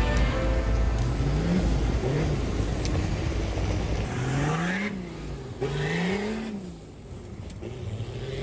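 Four-wheel-drive engine revving, its pitch climbing and falling several times. Over the first half it runs over a heavy rush of water and wind noise, which drops away about four seconds in.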